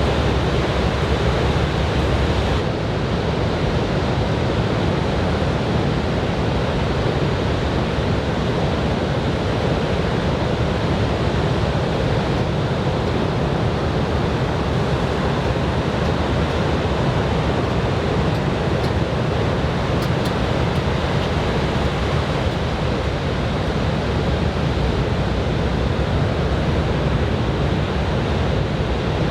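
Steady rush of surf breaking on a beach under a typhoon swell, with wind on the microphone.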